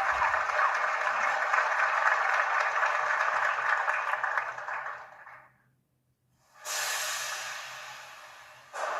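A steady hissing noise that fades away about five seconds in, then after a moment of silence a brighter, higher hiss that starts suddenly and slowly fades.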